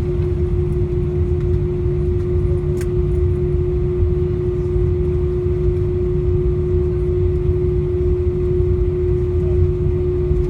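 Airbus A319-131 cabin noise on the ground after landing: a steady low rumble with a constant hum, and one brief click about three seconds in.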